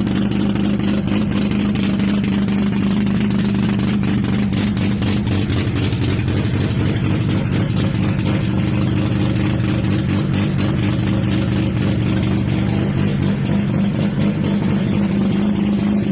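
Mazda 12A rotary engine running steadily at a constant speed, its exhaust note holding one steady pitch without revving up or down.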